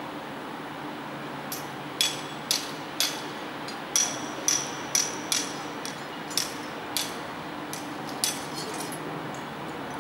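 Hand hammer tapping on a steel tube frame and its bracket: about ten sharp metallic strikes at irregular intervals, coming about two a second at the busiest.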